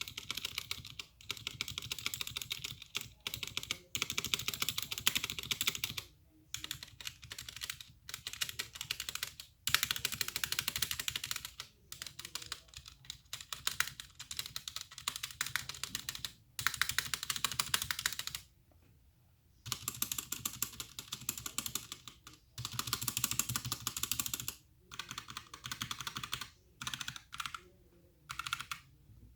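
HyperX Alloy Origins Core mechanical keyboard with HyperX Aqua tactile switches being typed on fast, in bursts of rapid key clacks broken by short pauses.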